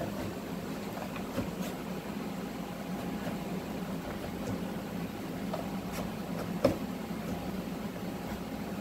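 Honeybees droning steadily, with a metal hive tool scraping and clicking against a wooden hive board covered in cross comb, and one sharp knock about two-thirds of the way through.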